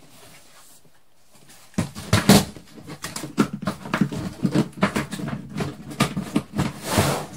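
A plastic storage-bin lid fitted with a chicken-wire panel is dropped onto the plastic bin and settles there. It makes a run of clattering knocks and rattles that starts nearly two seconds in and is loudest just after that, with a last short clatter near the end.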